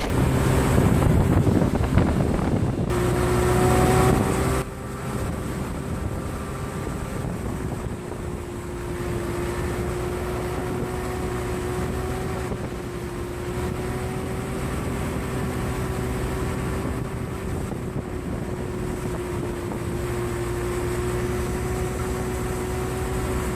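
An engine running steadily with a constant droning hum. It is louder and noisier for the first four to five seconds, then drops to a steady level.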